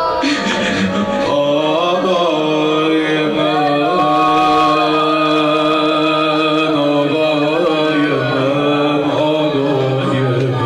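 Male voice chanting a Shia mourning lament (noha) in long held notes with wavering ornaments, over a steady low tone.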